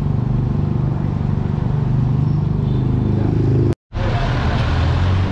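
City street traffic with a motor vehicle's engine running close by, a steady low hum. The sound cuts out for a moment a little under four seconds in, then carries on.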